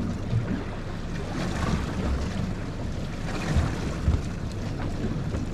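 Wind buffeting the microphone over water sloshing against a small fishing boat's hull, a steady rushing noise with a few faint knocks and bumps.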